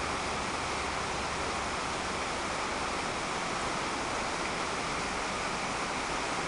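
Heavy rain falling steadily on floodwater and trees: an even hiss that neither builds nor fades.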